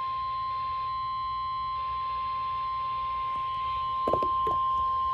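NOAA Weather Radio 1050 Hz warning alarm tone, a single steady high beep that signals a weather warning is about to be read, over low hiss and hum. A couple of brief noises cut in about four seconds in.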